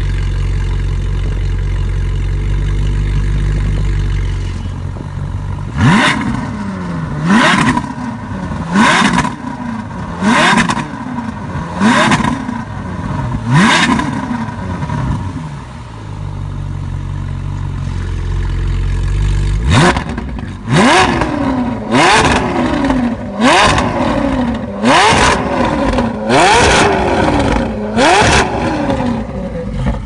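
Ferrari 458 Italia's flat-plane V8 through an Fi Exhaust valved catback and catless downpipes, idling with a deep rumble, then blipped in two runs of quick revs. Each rev climbs sharply and drops straight back, about one every one and a half seconds, six in the first run and about seven in the second, with a few seconds of idle between.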